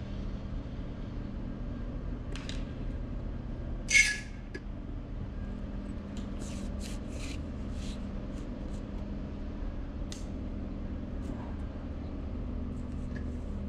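Steady low mechanical hum with one sharp knock about four seconds in, followed by a run of light clicks and taps as a landing net is handled on an inflatable boat.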